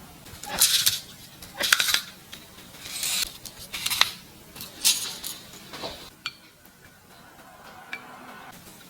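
A kitchen utensil scraping and clinking against a dish in short strokes about once a second, then a few light clicks near the end.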